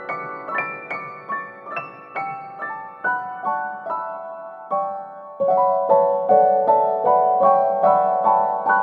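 Background piano music: a gentle run of single notes, about two to three a second, growing louder and fuller about five seconds in.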